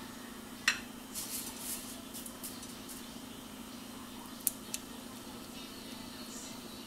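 A spoon knocking and scraping against a glass mixing bowl as a thick creamy mixture is scraped out. There is a sharp clink about a second in, soft scrapes after it, and two quick clicks midway, over a low steady hum.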